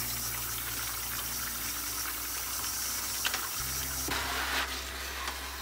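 Tap water running steadily into a utility sink while an empty foil camping-food pouch is rinsed under the stream, with a few brief crinkles or knocks from the pouch handling.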